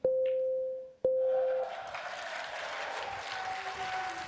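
Snooker Shootout shot-clock beeps: two steady electronic tones a second apart, the last seconds of the shot countdown, the second cut off short. Crowd noise then rises and carries on to the end.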